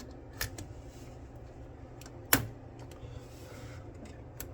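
A DDR5 RAM stick being handled and pressed into a motherboard memory slot. There is a small click about half a second in and a sharper, louder click a little past two seconds in, as the module snaps into place.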